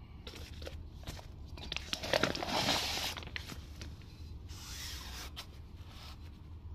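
Rustling and light scraping handling noise with a few scattered clicks, loudest about two to three seconds in and again near five seconds, over a steady low hum.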